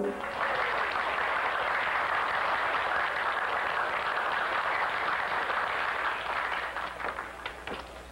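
Crowd applauding, starting just as the music stops and dying away to a few scattered claps near the end.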